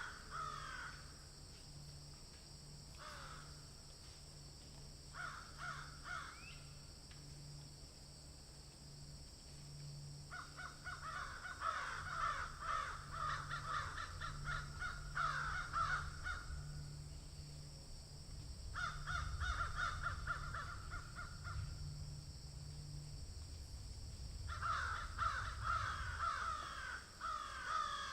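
A flock of crows cawing, many calls overlapping, in bouts of several seconds with quieter gaps between: short bursts in the first few seconds, then long stretches of cawing from about ten seconds in.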